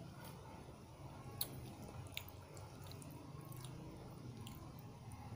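A person chewing a mouthful of fried egg and instant noodles with the mouth closed, with a few faint clicks scattered through, over a steady low background hum.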